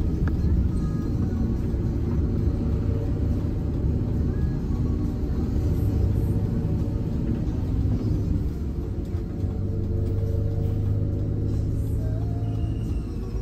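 Diesel bus engine running with a steady low rumble, heard from inside the passenger cabin, with music playing in the background.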